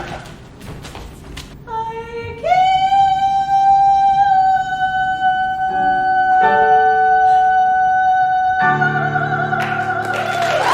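A woman's voice singing one long held high note, with piano chords coming in beneath it about six seconds in and again near the end, as a big musical finish. A few sharp knocks come first.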